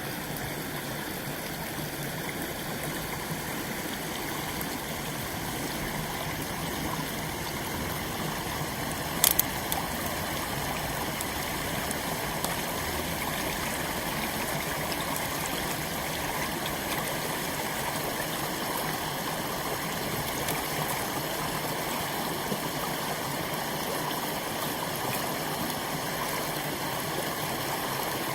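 Water running steadily through a hole punched in a beaver dam, with one brief sharp knock about nine seconds in.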